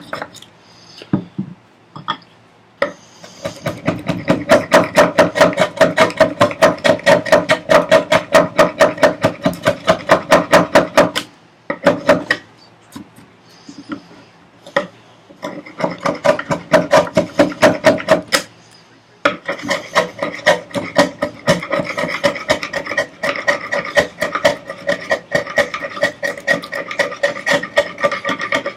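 A hand rasp worked in quick short strokes across wood, about six a second, in three runs with brief pauses between them.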